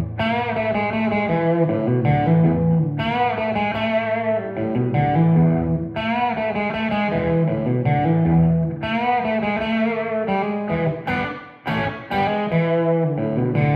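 Gibson Les Paul Custom electric guitar with Tom Holmes humbucking pickups, played through a Park amp and Two-Rock cabinet with a little overdrive. Sustained chords ring out with a new phrase about every three seconds, then quicker picked lines with short breaks near the end.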